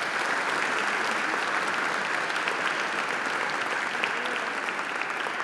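Audience applauding, a steady round of clapping from many hands.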